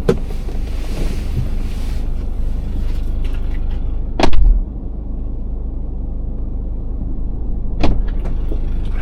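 Strong wind buffeting the microphone as a steady low rumble, with a loud thump about four seconds in and a shorter knock near the end.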